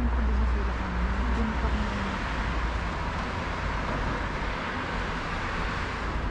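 Outdoor street noise: a steady low rumble with road-traffic hiss, and faint voices in the first two seconds.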